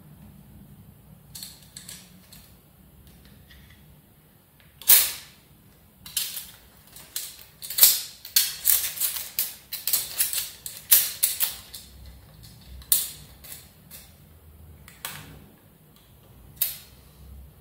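Irregular sharp clicks and ticks from a flexible tape measure being drawn out and handled against a road-bike handlebar. There are a few at first, then a dense, rapid flurry from about five to twelve seconds in, then scattered clicks again.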